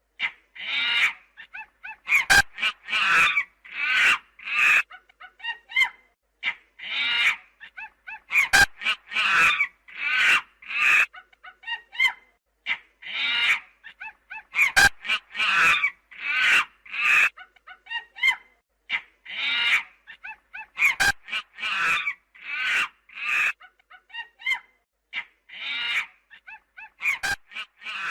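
Shrill animal calls repeated in quick succession, each short and pitched, with a sharp click about every six seconds where the recording loops.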